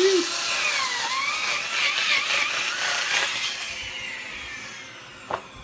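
A power tool running with a wavering whine, then winding down and fading out over the next second and a half from about three and a half seconds in.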